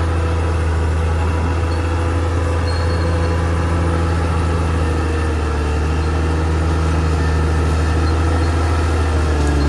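Caterpillar D6R XL bulldozer's diesel engine running steadily with a deep, low drone, its pitch shifting slightly near the end.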